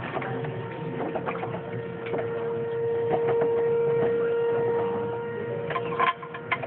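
A steady mid-pitched machine hum, growing louder through the middle and stopping about six seconds in, with scattered clicks and knocks.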